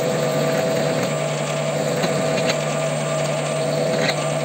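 Benchtop metal lathe (WM210V) running steadily with a whine while a twist drill in the tailstock chuck bores into the end of a steel bolt turning in the chuck. A few faint ticks sound over it.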